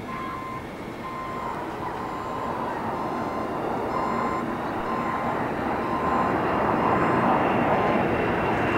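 A vehicle backup alarm beeping about once a second. Underneath, the rush of an aircraft engine grows steadily louder as it approaches.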